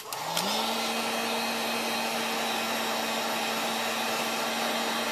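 Handheld heat gun switched on with a click, its fan motor spinning up over the first half second, then blowing steadily with an even hum on its low heat setting.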